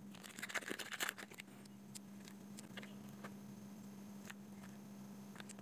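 Faint handling sounds of a foil powder packet rustling and a spoon scraping through powder on a ceramic plate: scattered soft clicks, most of them in the first second or so, over a steady low hum.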